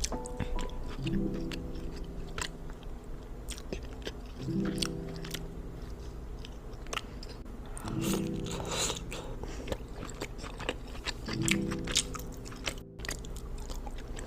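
Close-miked chewing and biting into seafood-boil food, with many sharp crunching clicks. Background music plays under it, a chord returning about every three and a half seconds.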